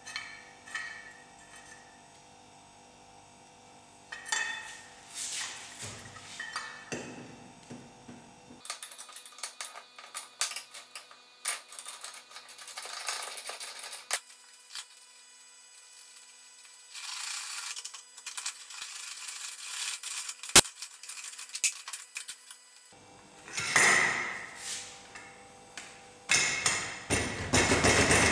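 Cast-iron bench vise being reassembled and worked by hand: irregular metal scraping and clinking as the sliding jaw and lead screw go back in through the rebuilt lead screw nut and the handle is turned. There is one sharp click about two-thirds of the way through, and denser scraping near the end.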